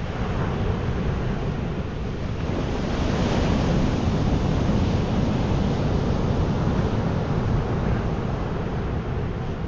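Sea surf washing onto the beach, a steady rush of waves with wind buffeting the microphone, swelling slightly a few seconds in.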